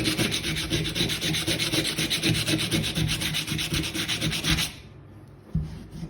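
80-grit sandpaper scrubbed by hand against a rusty steel hand tool in rapid, even back-and-forth strokes, abrading rust off the metal. The strokes stop abruptly near the end, followed by a single light knock.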